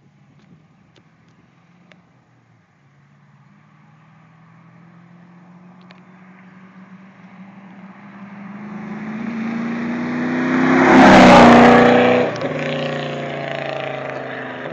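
2000 Pontiac Trans Am's LS1 V8, with long-tube headers, an off-road Y-pipe and a cat-back exhaust, doing a drive-by. It builds from far off with the engine note climbing, is loudest as it passes about eleven seconds in, then drops in pitch and fades as it goes away.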